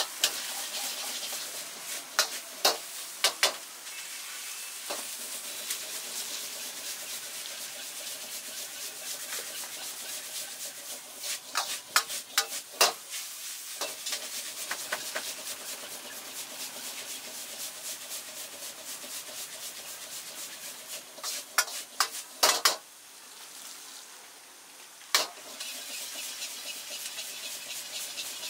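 Noodles and vegetables sizzling in a hot wok, with a steel ladle scraping the food around and knocking against the wok in several quick clusters of strikes.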